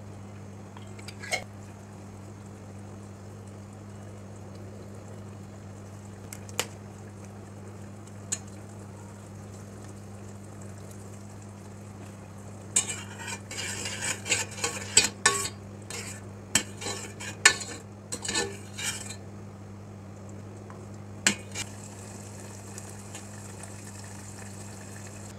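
A metal spoon stirring tomato sauce in a stainless steel saucepan. It gives a few single clinks against the pot, then a busy run of scraping and clinking for about six seconds past the middle. A steady low hum runs underneath.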